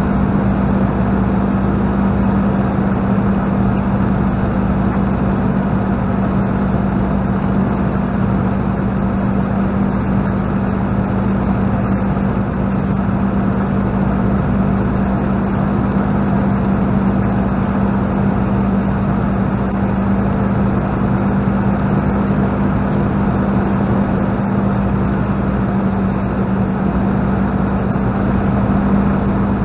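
Spitfire's piston V12 engine and propeller droning steadily in flight, heard from inside the cockpit with airflow rushing past the canopy. The engine note rises slightly near the end.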